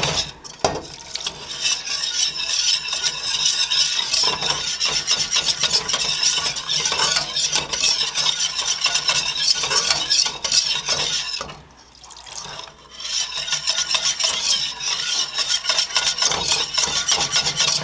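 Wire whisk scraping rapidly around a stainless steel skillet, whisking chicken broth into a butter-and-flour roux for a smooth sauce. The strokes run continuously, with a short pause about two thirds of the way in.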